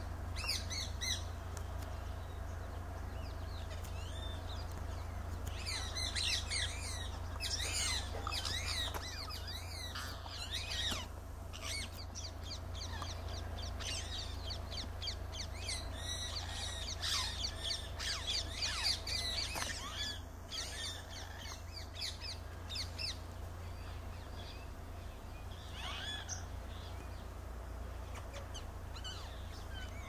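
Green parakeets calling: repeated short, shrill screeches in bouts, busiest about six to eleven and sixteen to twenty seconds in, with a few more near twenty-six seconds. A steady low hum runs underneath.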